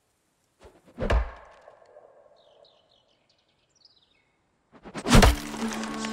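A sharp thunk about a second in, then a few short bird chirps. Near the end comes a louder, heavier hit, and steady music tones start up straight after it.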